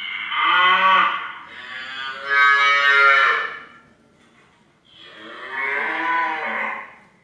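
Cattle mooing: a long, loud moo that swells twice, then a second, shorter moo about five seconds in.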